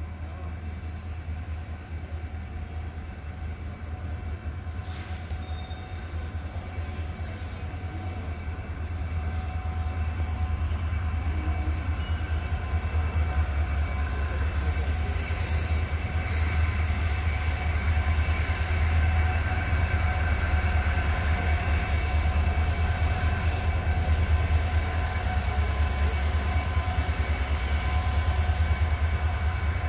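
Steady low rumble with a constant machine hum from a train at a railway station, growing louder about eight to ten seconds in.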